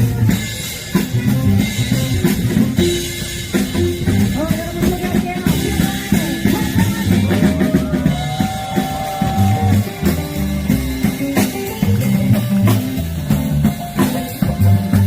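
Instrumental music with a drum kit and guitar playing a steady beat.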